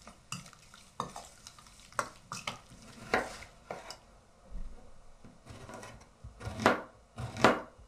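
A spoon scraping and clinking against a stainless steel bowl as chicken pieces are stirred in marinade. Later a large kitchen knife cuts an onion on a wooden board, giving a few sharp knocks near the end, the loudest sounds here.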